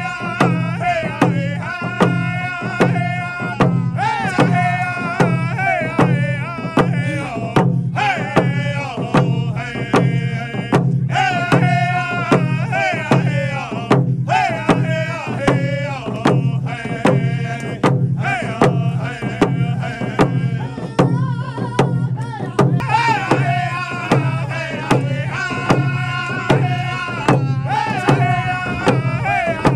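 Hand drum song: a group beating hand-held frame drums in a steady, even beat while voices sing a high chant in phrases over it.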